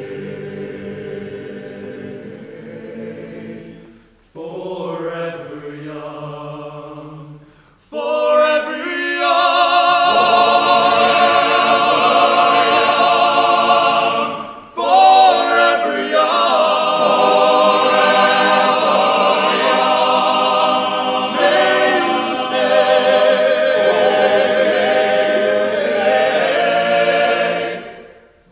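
Men's choir singing a cappella in close harmony: two soft held phrases, then the full choir comes in loud about eight seconds in, with a short break near the middle, and the loud chords stop shortly before the end.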